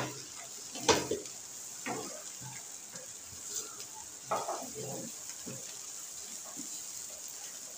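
Spatula stirring and scraping chopped chicken and green chillies around a black frying pan, with a sharper scrape about a second in and a cluster of scrapes and knocks around four to five seconds, over a steady high hiss.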